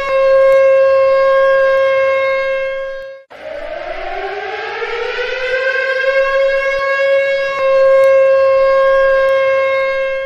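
Civil defense warning siren sounding a steady high wail that cuts off abruptly about three seconds in, then starts again low and rises in pitch over a couple of seconds back to the same steady wail, sounding as an alert for a tsunami warning.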